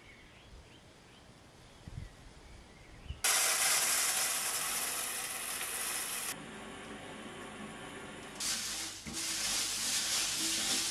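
After about three seconds of quiet, dried azuki beans pour into a stainless-steel mesh colander with a loud, steady rattling hiss. A little past halfway this drops to a quieter wash, then the beans are swished and rubbed by hand in water in the colander near the end.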